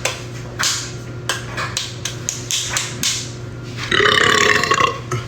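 A man belching: one long, loud burp about four seconds in, after a run of short knocks and rustles.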